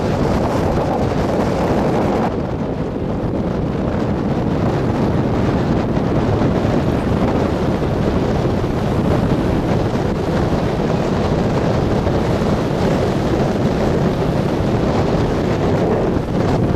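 Strong wind buffeting the camera microphone: a loud, steady rush with a heavy low rumble, its hiss dulling a little about two seconds in. Waves breaking on the shore run underneath.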